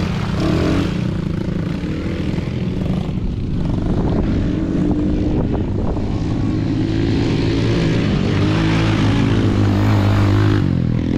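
Small youth quad-bike (ATV) engines buzzing and revving as the machines ride past on a dirt track, their pitch rising and falling with the throttle. The sound is loudest about eight to ten seconds in, when one quad passes close by.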